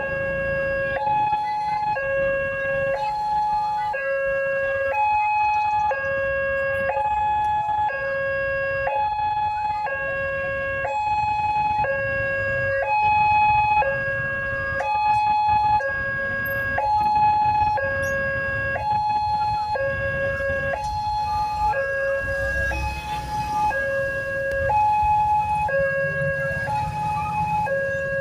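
Railway level-crossing warning siren sounding its two-tone alarm, a lower and a higher note alternating evenly about once a second, warning that a train is approaching and the barriers are closed.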